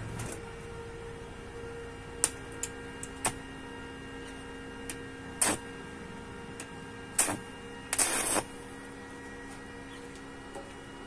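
Stick (arc) welding a steel bracket onto square tubing: a steady hum with sharp, irregular crackles and pops from the arc, and a longer burst of crackling about eight seconds in.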